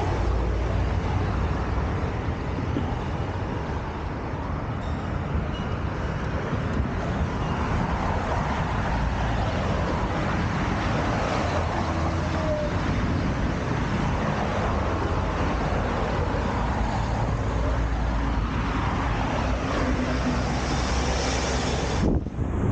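Steady road traffic noise of passing vehicles, with a brief drop-out near the end.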